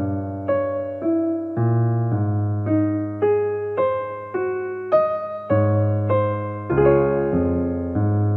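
Background piano music: a slow melody of single struck notes, about two a second, each fading away, over held low bass notes.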